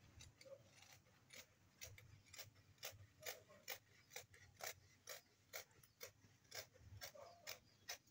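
Scissors snipping through stretch denim fabric, a faint regular click about twice a second as the blades close.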